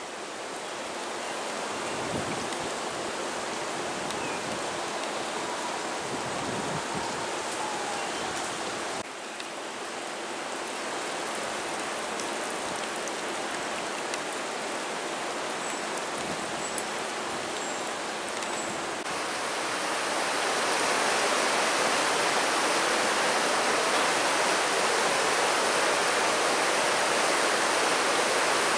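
Rain and rushing floodwater: a steady hiss of falling rain and running water. The sound changes abruptly twice and grows louder about two-thirds of the way through, where swift brown water pours across a road.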